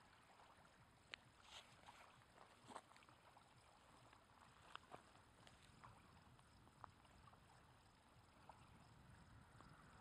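Near silence: faint seaside ambience with a scattering of soft, short ticks and small splashes, like gentle water lapping at the shore.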